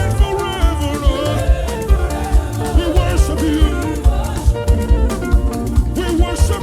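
Live gospel band playing an upbeat dance groove with a steady drum-kit beat, with singing over it.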